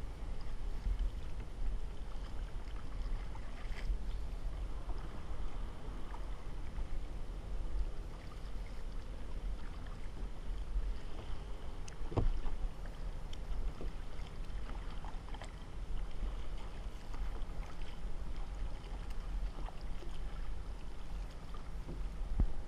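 Kayak being paddled on a lake: a low wind rumble on the microphone under light splashing of water, with a few light knocks, the clearest about twelve seconds in.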